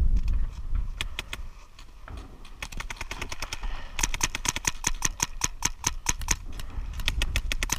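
Paintball marker firing in rapid strings of sharp pops, about six shots a second, with a few scattered shots before and more near the end. A low rumble on the microphone near the start.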